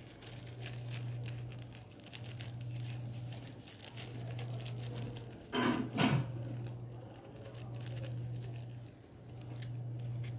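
Slime being mixed by hand on a table: faint sticky crackling and tapping. Two short louder squelches come about halfway through, over a low hum that swells and fades every couple of seconds.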